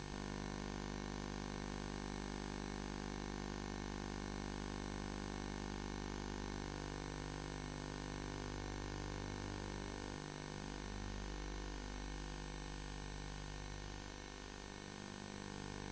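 A steady electronic hum made of many fixed tones, unchanging in pitch and level.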